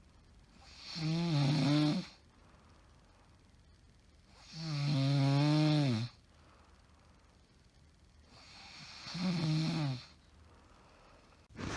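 A woman with sleep apnea syndrome snoring in her sleep: three long pitched snores about four seconds apart, each lasting a second or more. A sudden louder noise breaks in at the very end.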